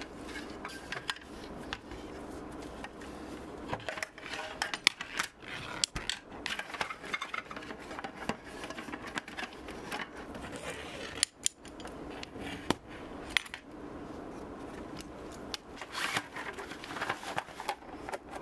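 Aluminium slats and legs of a folding camping table clinking and rattling as the table is collapsed and its roll-up slat top handled, with many sharp metallic clicks and knocks throughout.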